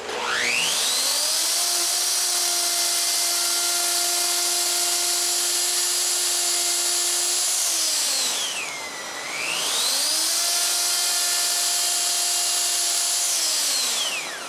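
Plunge router switched on and spinning up to a steady high whine while routing a half-round groove in plywood. It is switched off and winds down about eight seconds in, then starts again and runs until it winds down near the end.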